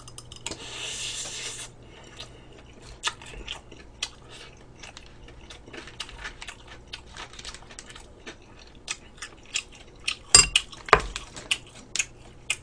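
Close-miked eating sounds: chewing, with many small clicks of metal chopsticks and a spoon against food and dishes. There is a second-long crackly noise about half a second in, and two louder clicks near the end.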